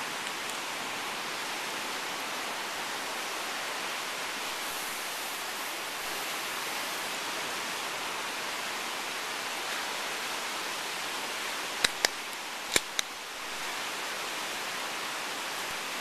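Steady rushing noise, with three sharp clicks about twelve seconds in.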